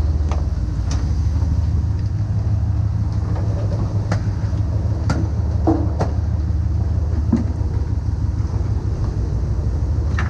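Fishing boat's engine running with a steady low drone, with a few short sharp knocks and clicks over it.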